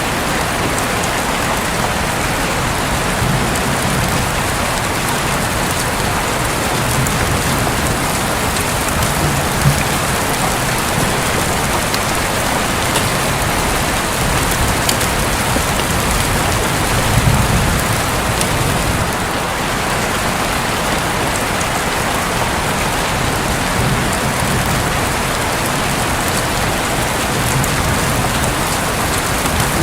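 Steady heavy rain drumming on a roof, with a low rumble swelling briefly a little past halfway.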